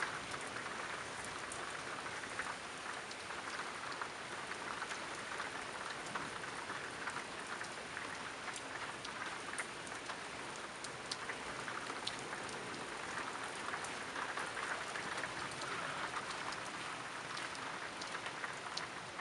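Steady rain falling during a thunderstorm, with a constant hiss and many separate drops ticking close by.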